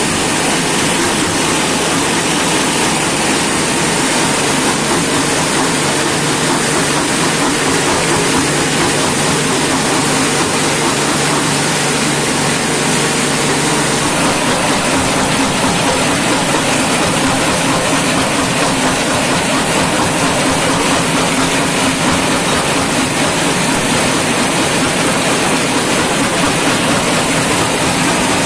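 PE-250×400 jaw crusher and its belt conveyors running, driven by a 15 kW electric motor through V-belts: a loud, steady mechanical din with a low hum underneath.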